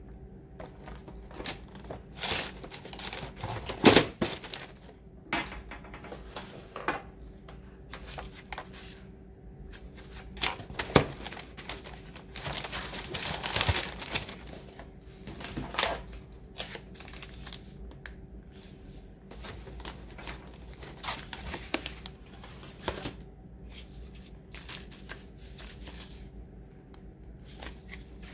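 Tissue paper and packaging rustling and crinkling as items are handled and set into a cardboard box, with scattered clicks and knocks. The sharpest knocks come about four seconds and eleven seconds in. A faint steady hum runs underneath.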